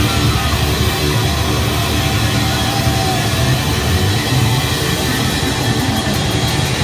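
Thrash metal band playing live and loud: distorted electric guitar, bass guitar and drum kit together in a dense, unbroken wall of sound.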